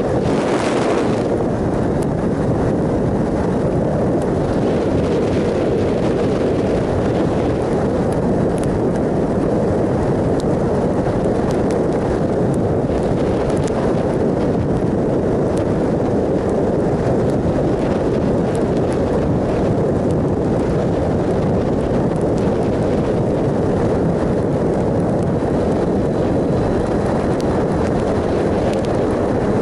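Steady wind roar over the microphone of a camera riding on a 2007 Triumph Sprint ST 1050 at cruising speed, mixed with the bike's running engine; the level does not rise or fall.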